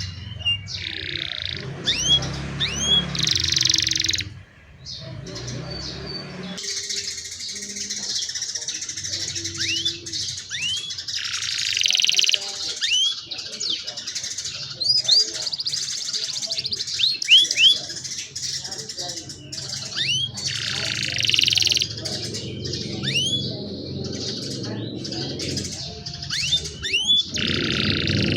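Young domestic canaries singing: repeated rising whistled notes broken by several bursts of fast, dense trills.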